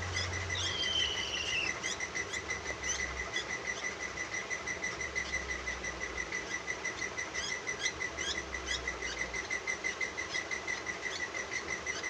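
Baby parakeet chirping in short high calls as it is hand-fed formula from a stick, over a steady, fast-pulsing high trill like a cricket's. A falling whistled call sounds about a second in.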